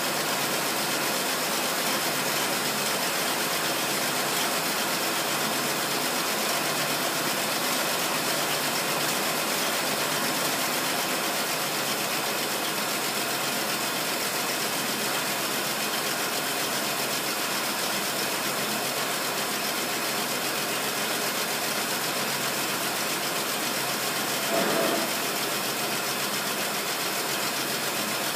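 1928 Rolls-Royce Phantom I's straight-six engine idling steadily on its first test run after 15 years standing. A brief, louder sound cuts in once near the end.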